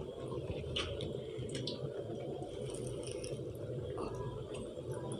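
Hot oil bubbling and sizzling around a potato naan frying in a pan: a steady crackle with a few faint pops.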